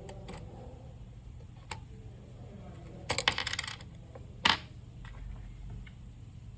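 Small hard clicks and a brief rattling clatter about three seconds in, then one sharp click a second later: a key fob's plastic case and its coin-cell battery being handled during a battery change.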